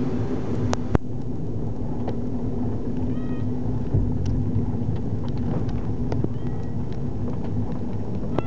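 Steady low rumble of a car driving slowly, heard from inside the cabin, with a cat giving a short meow about three seconds in and another near six seconds. A sharp click about a second in.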